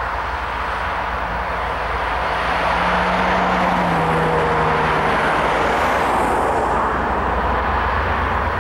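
A freight train's cars rolling past on the rails, a steady roar with a low rumble underneath. A faint tone drops slightly in pitch near the middle.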